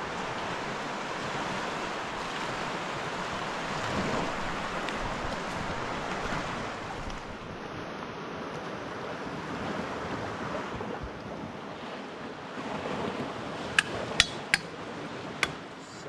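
Steady rushing of a swollen river's current. About two seconds before the end come four sharp knocks.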